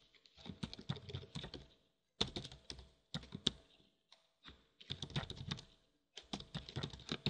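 Typing on a computer keyboard: quick keystroke clicks in four short runs with brief pauses between them.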